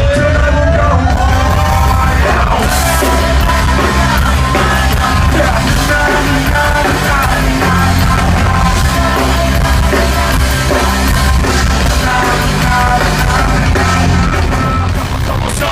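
Live hip-hop concert heard loud from the crowd: a heavy bass-driven backing track with rapped and shouted vocals over it.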